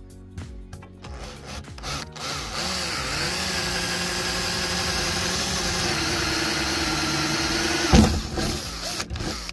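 Electric drill boring a small pilot hole through the sheet-metal boot lid of a Mazda MX-5, the first of a series of ever larger bits. It runs steadily for about six seconds and ends in a loud knock about eight seconds in.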